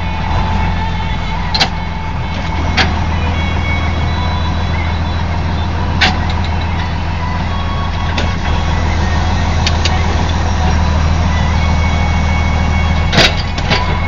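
Tractor engine running steadily while driving a bale feeder, with a handful of sharp clicks and knocks.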